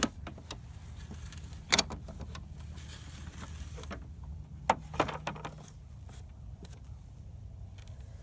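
A few sharp clacks and rattles from a child's ride-on backhoe toy as its bucket and arm are worked, over a low steady hum.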